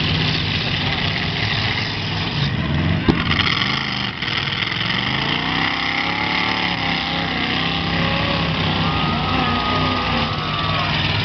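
Demolition derby cars' engines running together, their pitch rising and falling, with a single sharp knock about three seconds in.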